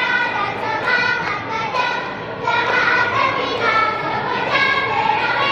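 A group of young girls singing and chanting a yel-yel, a cheer song, together in unison.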